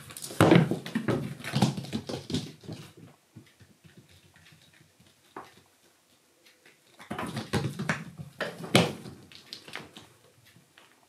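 Kittens pouncing and scrabbling in play: thuds of landings with paws and claws scratching and pattering. They come in two bursts of a few seconds, the second starting about seven seconds in.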